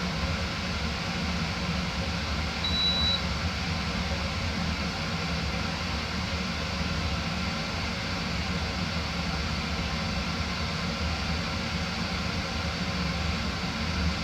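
Casablanca Utopian ceiling fan with a direct-drive 188 mm spinner motor, running steadily at speed: an even rush of air from the blades over a low motor hum, with the slight cyclic flux buzz the owner notes in the motor. A single short high beep sounds about three seconds in.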